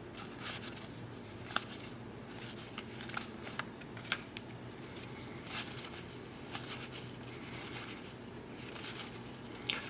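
Cardboard baseball cards being flipped through by hand, their edges making scattered light clicks and soft sliding sounds as each card is pushed from one hand to the other, over a faint low hum.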